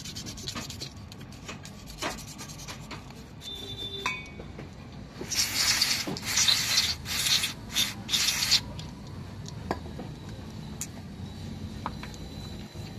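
Brake caliper guide pins being rubbed and scrubbed clean by hand, with light clicks and taps, then a run of about five loud rasping strokes in the middle. The pins had jammed, wearing one brake pad far more than the other.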